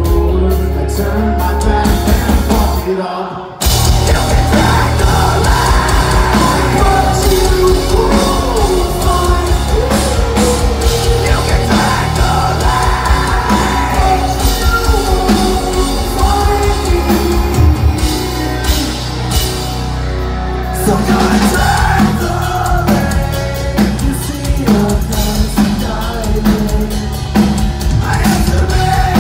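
Metalcore band playing live through a PA, heard from the audience: drums, distorted guitars and vocals. The music drops out briefly about three seconds in, then the full band comes back in.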